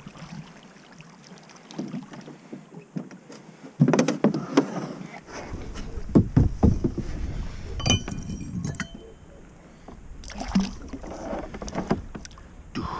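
Irregular knocks and water splashes in a small boat as a hooked fish is reeled in and landed on spinning tackle. A low rumble of wind on the microphone sets in about five seconds in.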